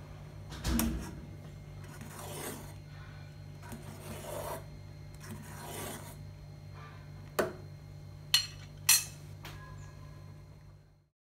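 Metal spoon scraping and stirring in an aluminium pot of boiling rice porridge, with sharp clinks of the spoon against the pot about a second in and three times near the end, over a steady low hum. The sound cuts off suddenly at the very end.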